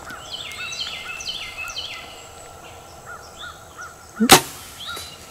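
Birds calling: a quick run of high, downslurred calls in the first two seconds, over a steady string of softer chirps. About four seconds in comes a single sharp, loud crack.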